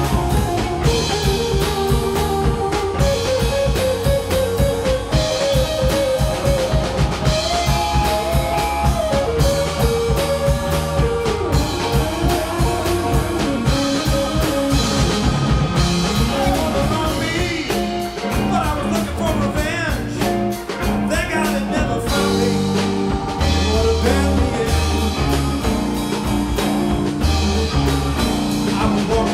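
Live rock band playing: a drum kit keeps a steady beat under two electric guitars, with wavering high notes through the middle.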